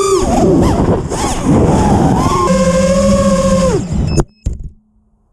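Racing quadcopter's brushless motors and propellers whining (T-Motor F40 III, 2600 Kv), the pitch swooping up and down with the throttle, held high for about a second, then falling away. The sound cuts off sharply about four seconds in, followed by a couple of faint clicks.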